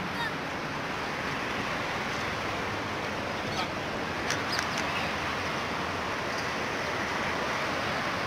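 Steady rushing background noise with a few faint clicks about halfway through.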